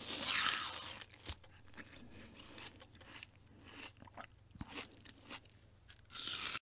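Someone biting into and chewing watermelon: a crunchy bite at the start, wet crackly chewing, then another crunch near the end before the sound cuts off suddenly.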